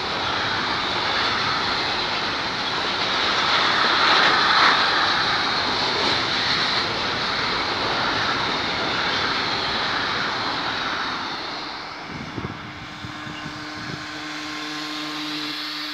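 Long container freight train rolling past on steel wheels and rail: a steady roar of the passing wagons that dies away near the end as the last wagons go by.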